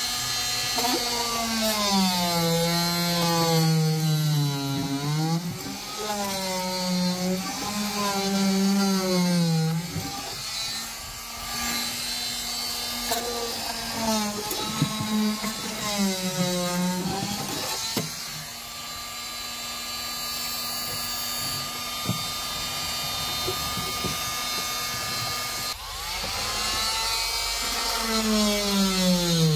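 Corded 2-amp oscillating multi-tool with a flexible scraper blade running as it strips old rubber sound deadening off a car floor. Its pitch sags and recovers over and over as the blade is pushed into the rubber, with a steadier stretch in the second half.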